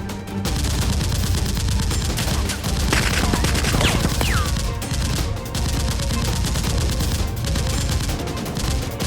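Rapid, sustained gunfire in dense volleys over background music.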